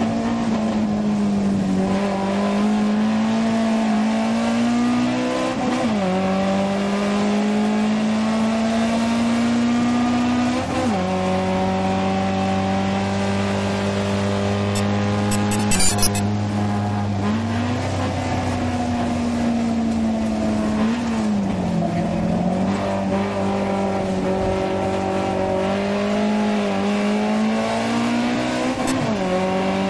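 Alfa Romeo 2000 Veloce's twin-cam four-cylinder engine heard from inside the cabin under hard acceleration up a hill: the engine note climbs steadily in each gear and falls sharply at each upshift, with dips as the car slows for bends. A short burst of sharp crackles comes about halfway through.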